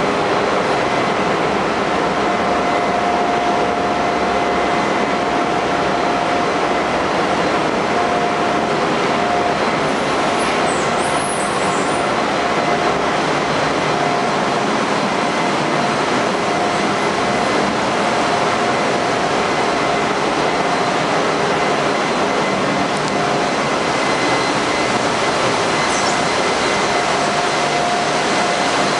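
Loud, steady machinery noise of a tanker's engine room, a dense roar with a steady whine that fades in and out.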